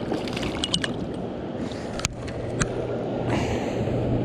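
Knocks and clicks of a fish and gear being handled in a kayak: a few sharp ticks near the start and two knocks about halfway through, over water noise and a steady low hum that comes up about two seconds in.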